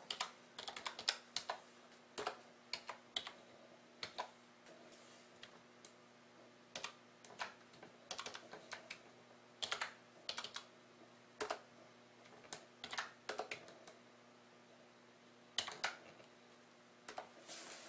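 Typing on a computer keyboard: faint, irregular keystrokes in short runs with pauses between them, over a low steady hum.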